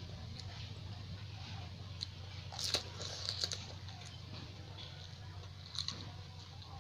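Crisp pani puri (golgappa) shells crunching as they are bitten and chewed close to the microphone: a cluster of crunches a little under three seconds in and another near six seconds, over a steady low hum.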